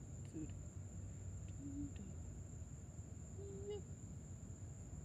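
Crickets chirping in one steady, unbroken high trill over a low rumble, with a couple of faint, brief voice-like tones about two and three and a half seconds in.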